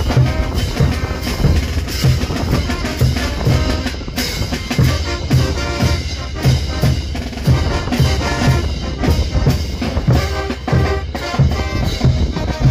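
Brass band playing: bass drums, a snare drum and clashing hand cymbals keep a steady beat, about two bass drum hits a second, under brass horns.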